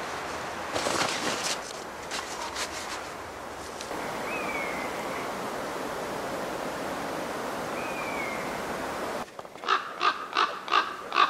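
A crow cawing about six times in quick succession near the end. Before that, rustling and knocks at the start, then a steady rushing noise with two short high falling calls.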